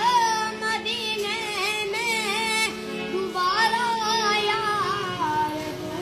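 Hindi film-style song: a high voice holding wordless, ornamented melodic phrases over sustained accompaniment.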